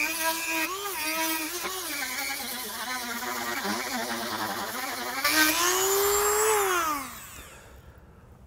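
Dremel rotary tool with a small drum bit grinding the burrs off the edge of a freshly cut hole in quarter-inch steel. Its whine wavers in pitch as it bears on the edge, rises briefly, then falls away as the tool spins down about seven seconds in.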